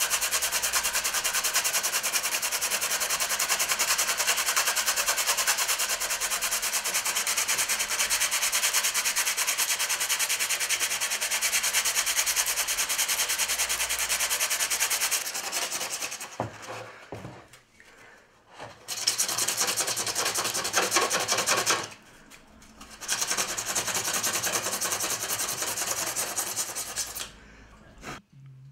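Sandpaper rubbed by hand along the edge of a model ship hull part, in fast, even strokes. The rasping stops for a few seconds about sixteen seconds in, and again briefly around twenty-two seconds, then ends just before the close.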